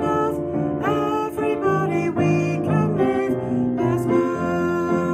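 Upright piano playing a hymn accompaniment, chords and a melody line, with a woman singing along.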